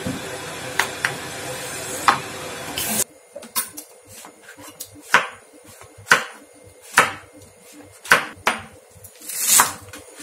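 Kitchen knife cutting on a wooden chopping board: first chopping cooked goat meat over a steady hiss, then, after an abrupt change about three seconds in, slicing button mushrooms with a sharp knock of the blade on the board roughly once a second.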